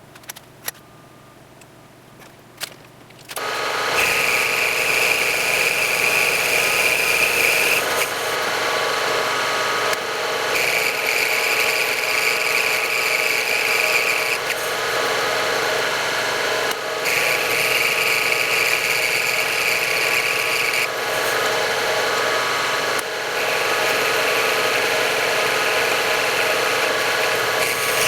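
A few light clicks and knocks, then an electric machine tool starts about three and a half seconds in and runs steadily. A higher-pitched cutting sound comes and goes four times over it, each time for about four seconds.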